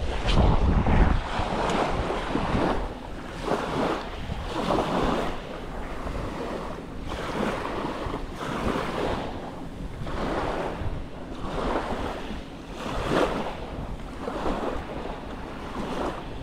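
Small waves lapping and breaking on a pebble beach, a wash about every second or so, with wind buffeting the microphone, heaviest at the start.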